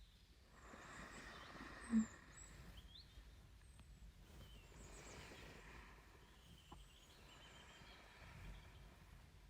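Slow, soft, close-miked breathing, faint and rising and falling every few seconds, with a brief low hum about two seconds in. Faint high chirps sound in the background.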